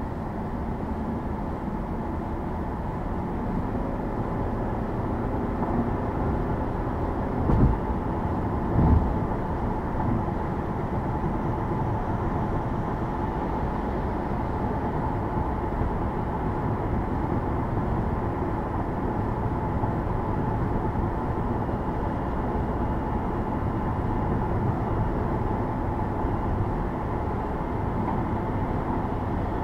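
Steady road and tyre noise of a car driving on a highway. Two short thumps come a little over a second apart, about seven to nine seconds in.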